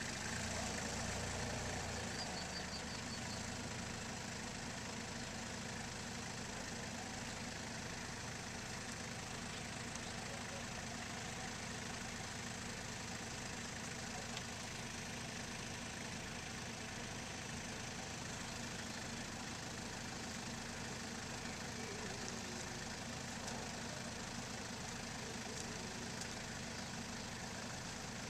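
Small farm tractor engine idling steadily in the mud of a flooded paddy field, a little louder for the first couple of seconds.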